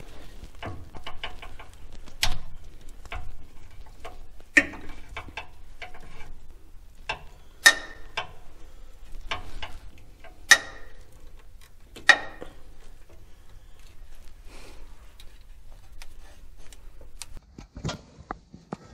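Socket ratchet clicking in short runs while loosening the hold-down bolt of a transmission speed sensor, with several sharp clinks of metal tools against the housing.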